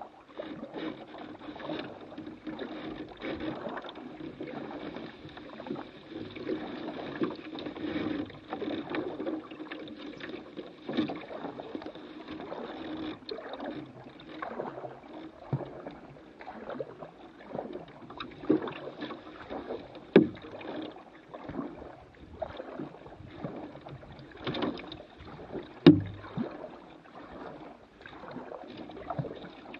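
Canoe being paddled: irregular splashing and dripping of water from the paddle strokes, with a few sharp knocks of the paddle against the hull, the loudest about twenty and twenty-six seconds in.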